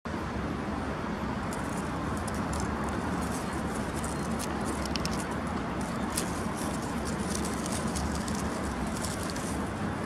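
Steady outdoor ambience of a city park: an even low rumble of distant road traffic, with scattered faint high-pitched ticks and chirps over it.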